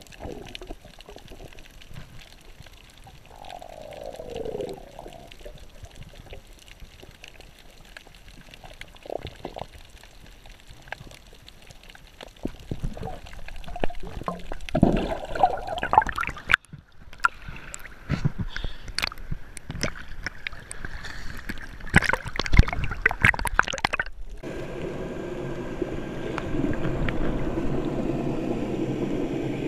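Underwater water noise on a scuba dive: bubbling and gurgling with scattered clicks and crackles, growing busier past the middle. It breaks off abruptly twice, and after the second break a steadier droning noise takes over.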